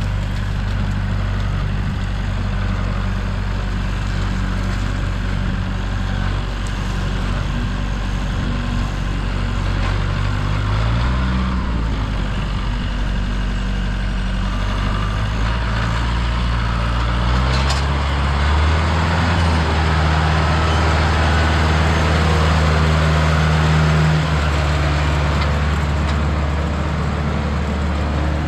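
Large engine of heavy equipment running steadily at a low pitch. The engine speed shifts about a third of the way in and rises again past the middle, as if put under load.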